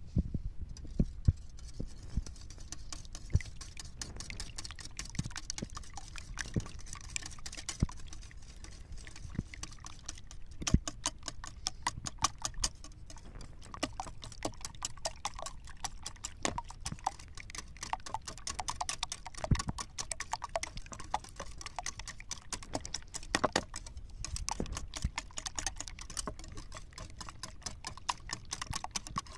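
Wire balloon whisk beating raw eggs in a bowl: a fast, continuous clicking of the wires against the bowl's side, with occasional louder knocks.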